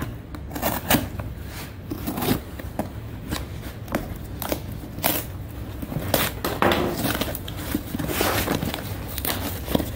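Cardboard mailing box being handled and opened on a wooden tabletop: a string of short scrapes, taps and crinkles of cardboard and packing tape.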